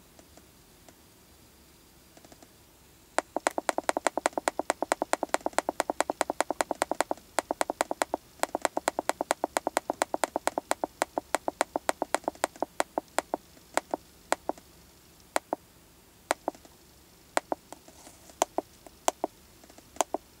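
Buttons on a handheld Autel MaxiDiag scan tool being pressed over and over, rapid clicks several a second while scrolling a menu, thinning to scattered single clicks in the second half.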